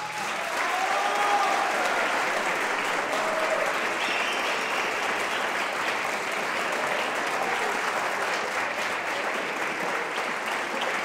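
Audience applause breaking out as an orchestral piece ends: dense, steady clapping with a few voices calling out.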